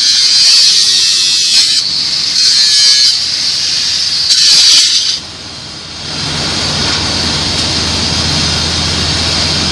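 TIG welding arc on pipe, a loud steady high-pitched hiss that wavers and briefly dips a few times, stopping about five seconds in. After that a quieter steady noise with a low hum continues.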